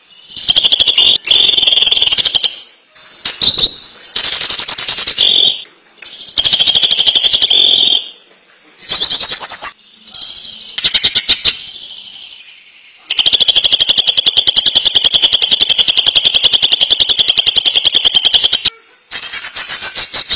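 Cucak ijo (green leafbird) singing in bouts of very rapid, staccato rattling notes, the 'ngentrok' style of song, each bout broken off by a short pause; the longest bout runs about five seconds in the second half.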